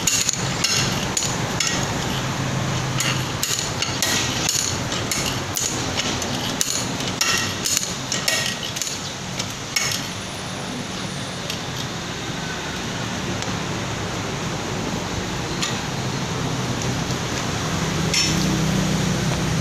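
Bench vise being tightened by hand: the steel sliding handle clanks against its stops as it is turned, many sharp metallic knocks over the first half, then only a few. A steady low hum runs underneath.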